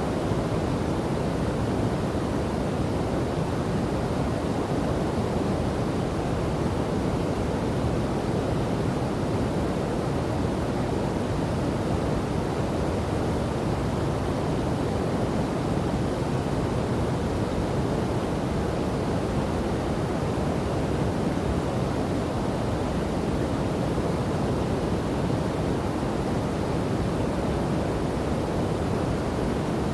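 Steady rushing of a river and waterfall, a constant deep roar of falling and flowing water with no change in level.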